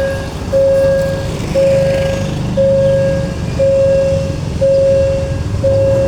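An electronic warning beeper sounding one steady tone about once a second, over the low rumble of an idling diesel-electric locomotive.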